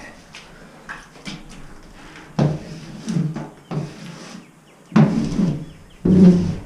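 A hand scraper working over the steel inside of a commercial smoker in irregular strokes, about five of them, each with a low metallic ring as sludge and patina are scraped off the walls and floor.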